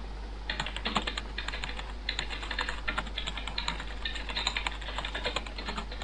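Recorded computer-keyboard typing sound effect: a quick, uneven run of key clicks. It plays as a Flash typewriter text animation puts the letters on screen one by one, and starts about half a second in.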